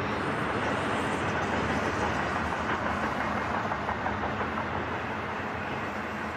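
BNSF double-stack intermodal freight train rolling past on the mainline, a steady noise of loaded container cars' wheels on the rails.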